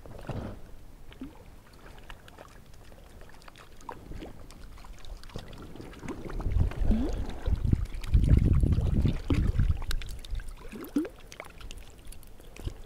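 Creek water splashing and sloshing as a hooked brook trout is brought in and netted at the water's edge, with heavy rubbing and handling noise on the microphone that is loudest in the middle.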